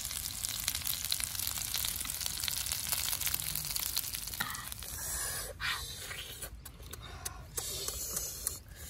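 Roasted frogs sizzling and crackling on a hot metal sheet. About four and a half seconds in, this gives way to short breathy voice sounds and eating noises from boys.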